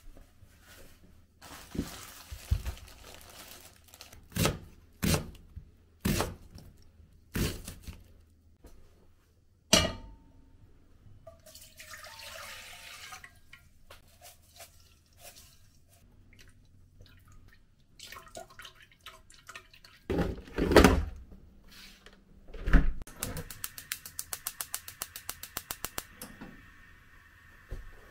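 Kitchen handling sounds: a series of knocks and clunks of containers and a metal pot on a counter and stove, with a short stretch of water pouring. About three-quarters of the way through, a gas hob's igniter clicks rapidly for a few seconds until the burner catches and its flame hisses faintly.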